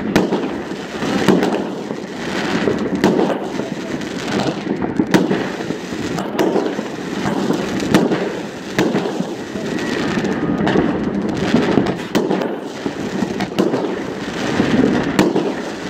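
Many fireworks going off at once: a constant mix of overlapping bursts, with sharp bangs standing out every second or two.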